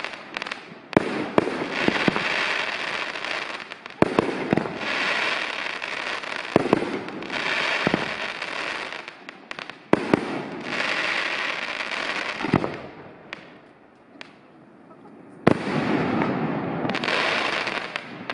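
Fireworks display: aerial shells bursting with sharp bangs, each followed by a long stretch of dense crackling from golden crackle stars. A short lull comes past the middle, then a loud bang and more crackling near the end.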